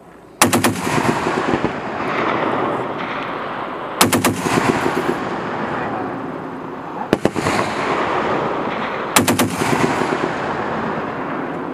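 M2 Browning .50 calibre heavy machine gun firing four short bursts of a few rounds each, the third burst the shortest, each burst followed by a long rolling echo.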